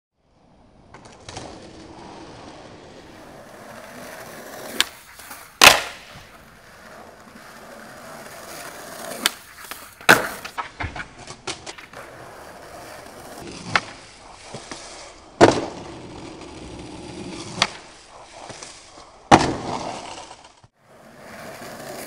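Skateboard wheels rolling on stone paving, broken by about eight sharp clacks and slams of the board popping and hitting the ground on attempts at a hardflip down a stair set.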